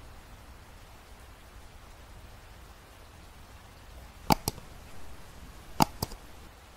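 Two double mouse clicks from a subscribe-button animation's sound effect, one pair about four seconds in and a second pair about a second and a half later, over a faint steady hiss.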